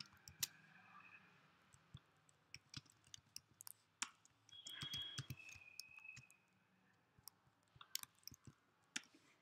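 Computer keyboard typing, quiet and irregular: scattered key clicks. A faint, brief high tone comes about halfway through.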